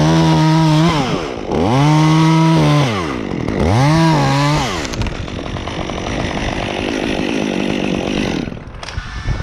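Top-handle chainsaw cutting a limb, revved to full throttle in three bursts, each rising, holding and then falling away, within the first five seconds. It then runs more quietly for a few seconds and drops off near the end.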